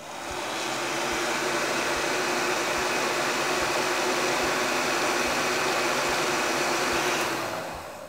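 Electric heat gun running: its fan blows a steady rush of hot air with a low motor hum, shrinking heat-shrink tubing over a soldered wire joint. It comes up to speed at the start and is switched off and winds down near the end.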